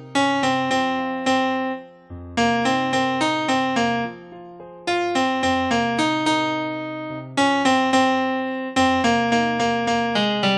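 A piano-type keyboard, sounding like an electric piano, plays a melody over sustained bass notes. It moves in short phrases of a few struck notes each, with a brief break roughly every two and a half seconds.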